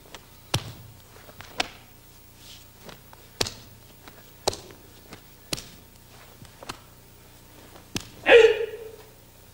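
A karateka's kata: a series of short, sharp snaps and slaps as techniques are thrown, about one a second, then a sharp impact followed by a loud kiai shout that falls in pitch near the end.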